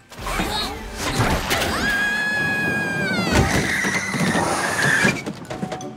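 Cartoon crash sound effects: suitcases and a baggage cart clattering and tumbling in a long pile-up, with a long high held note in the middle that drops in pitch as it ends.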